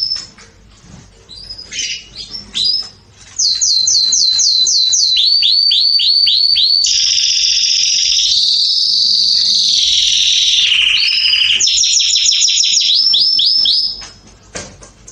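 Black agate canary singing. A few short chirps come first, then from a few seconds in a continuous song of fast rolls of repeated falling notes, a long buzzing trill in the middle, and more rapid rolls. The song breaks off about a second before the end.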